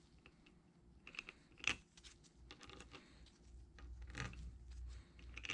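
Small steel fillister-head screws clicking and rattling as they are picked up and threaded by hand into a cast-iron gear coolant pump body, with scattered light metal taps; the sharpest clicks come about a second and a half in and again near four seconds.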